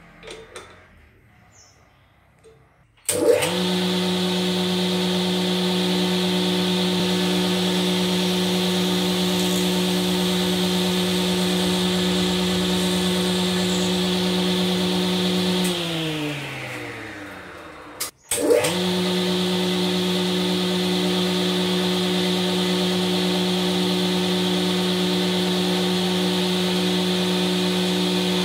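The electric motor of a woodworking machine switches on about three seconds in and runs with a steady hum, spinning a drill chuck and bit mounted on its side shaft for boring into wood. Near the middle it is switched off and winds down in pitch, then it starts again and runs steady.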